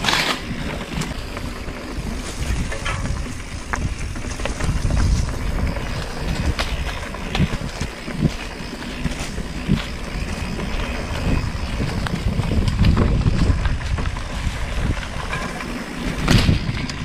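Mountain bike riding down a rough dirt singletrack: the rumble of tyres on the ground and the bike's rattles, with wind on the microphone and scattered clicks and knocks as it bounces over the trail.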